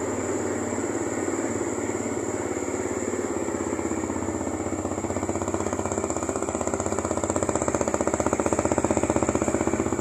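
Motorcycle engine idling steadily on a test run after its spark plug was cleaned with petrol, showing the engine starts and keeps running. It grows a little louder in the second half.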